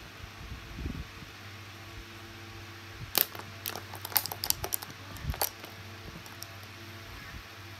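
Small makeup tools being handled, giving a quick run of light clicks and clatters from about three to five and a half seconds in, over a steady low hum.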